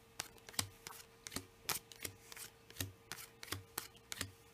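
Playing cards dealt one at a time onto a table, each landing with a light slap, two or three a second.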